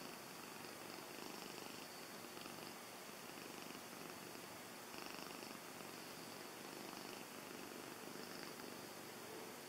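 Long-haired grey tabby cat purring steadily and softly.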